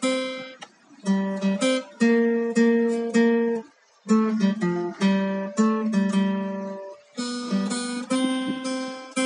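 Background music on acoustic guitar: picked notes and chords, each ringing and fading away, with a short pause about four seconds in.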